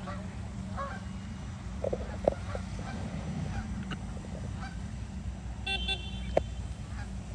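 Canada geese honking now and then over a steady low rumble, with two sharp clicks, one about two seconds in and one near the end.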